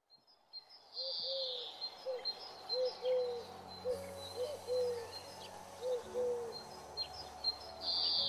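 Birds calling: a low, arched call repeated about once a second, with small birds chirping high above it.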